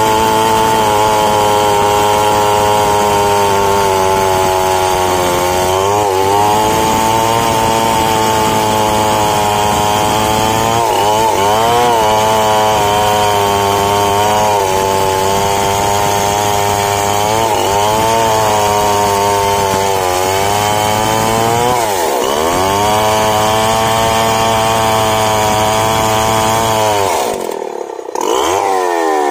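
Large two-stroke chainsaw cutting deep into a big mahogany trunk at full throttle, its pitch sagging under load every few seconds and recovering. Near the end the engine drops briefly towards idle, then revs up again.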